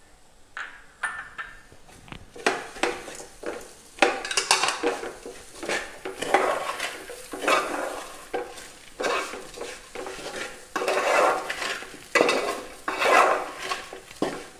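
A utensil stirring and scraping a beaten-rice, banana and coconut filling around a pan, in repeated strokes about once a second after a quiet start.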